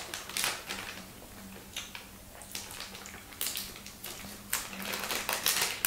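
Repeated short sniffs at an open plastic packet of dried salted fish snacks held up to the nose, with faint rustling of the packet.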